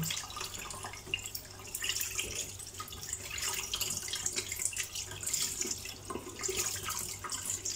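Tap water running into a stainless steel sink and splashing over a whole tilapia as it is rinsed and turned by hand.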